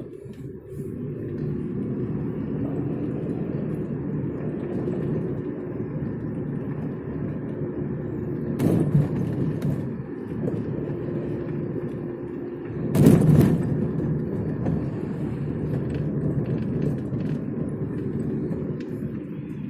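Car driving, heard from inside the cabin: a steady low hum of engine and road noise. Two brief louder noises come about 9 and 13 seconds in, the second the louder.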